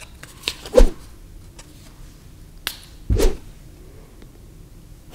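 Small perfume sample vial and paper blotter strip being handled: a few light clicks, with two louder knocks about a second in and about three seconds in.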